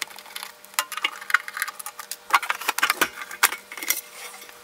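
Screwdriver undoing screws in the sheet-metal case of a UPS: irregular small metallic clicks and rattles.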